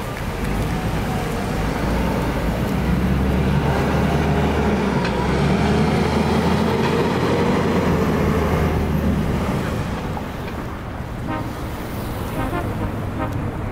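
City street traffic, led by a heavy vehicle's engine running with a low steady drone that fades out about two-thirds of the way through.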